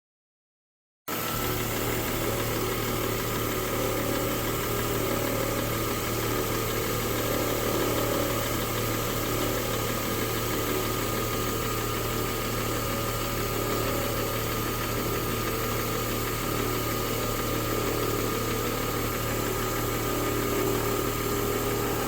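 2011 Mercedes-Benz E350's 3.5-litre V6 idling steadily with a constant low hum, a Seafoam engine flush circulating in the oil before the drain. It cuts in abruptly about a second in.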